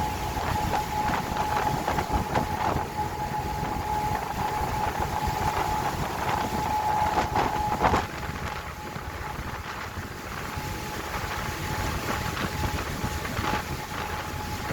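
Boat under way in rough seas: wind buffeting the microphone over the boat's running noise, with a thin steady whine. There is a sudden loud peak about eight seconds in, and after it the sound is a little quieter.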